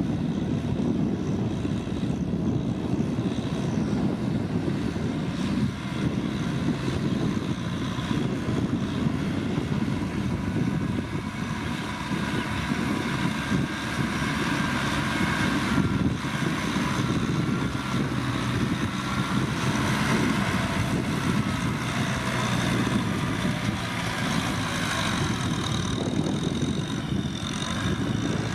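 Kubota M6040SU tractor's diesel engine running steadily under load while ploughing.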